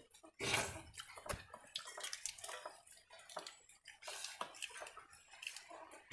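Soft, wet eating sounds of people eating rice and curry with their hands: fingers squishing and mixing rice on steel plates, with chewing and lip smacks as small, irregular clicks.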